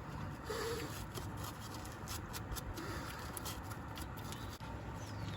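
Irregular scratching and light clicking of a hand brush scrubbing the brake parts of a Honda CR-V's front brake.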